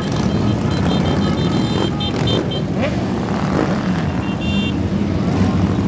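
A steady, dense rumble of many cruiser and touring motorcycles riding past slowly in a column. Thin high tones sound briefly twice over it.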